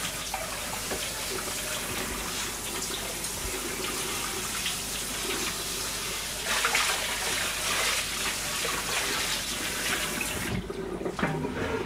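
Water running steadily from a kitchen tap into a sink, shut off abruptly near the end.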